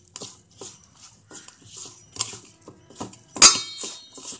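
Hand mixing a spice masala in a stainless steel bowl: fingers scraping and rubbing the powder against the bowl in quick strokes, about three a second, with light metallic clinks. One loud ringing clink comes about three and a half seconds in, as the metal bangle on the mixing wrist knocks the bowl.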